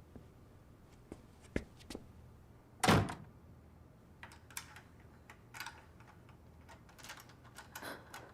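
A single heavy thud about three seconds in, with a few light clicks before it and scattered soft rustles and knocks after it.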